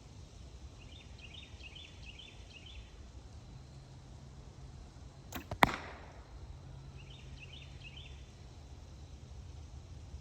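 A bow shot at a bag target: two sharp cracks a fraction of a second apart about five and a half seconds in, the bowstring's release and then the arrow's louder strike into the bag.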